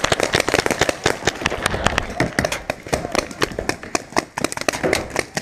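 Paintball markers firing rapidly, a dense, uneven string of sharp pops from several guns at once.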